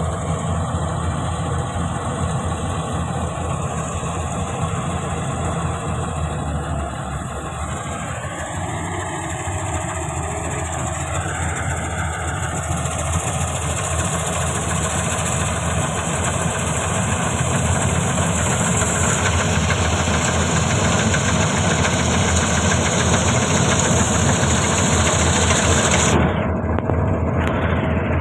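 A combine harvester's diesel engine runs steadily as it harvests rice, with a hiss above the engine hum. It grows louder as the machine draws near, and the highest hiss drops away suddenly near the end.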